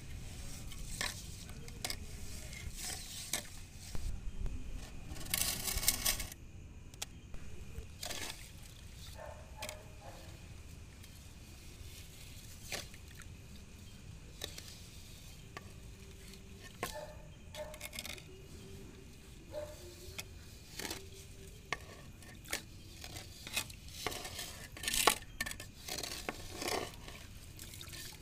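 Metal cooking pots and utensils clattering and scraping as food is stirred, with scattered knocks and a brief rush of noise about five seconds in.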